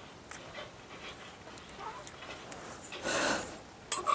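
A single sharp, breathy puff of a person's breath, about half a second long, about three seconds in, over faint scattered clicks.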